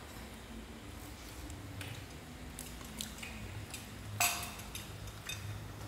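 Chopsticks and utensils tapping and scraping on plates and bowls in scattered light clicks, with one louder clink about four seconds in.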